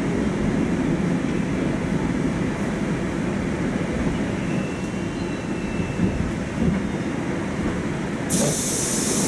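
Inside the car of a moving Oka (81-760/761) metro train: a steady rumble of the wheels on the track. A faint high whine comes in about halfway through, and a sudden high hiss starts a second before the end.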